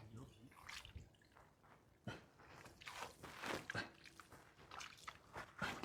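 Faint, irregular squelches and drips of wet mud and water being disturbed, a little busier about three seconds in.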